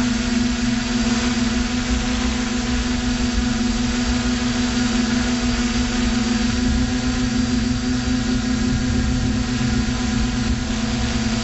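Electric motors and propellers of a radio-controlled FPV aircraft, recorded by its onboard camera: a steady, even-pitched hum with wind rumbling on the microphone.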